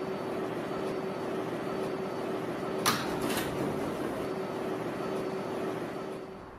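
New York City subway car's steady interior hum with a low tone; about three seconds in, a sharp clunk and a brief rush of noise as the car's sliding doors open.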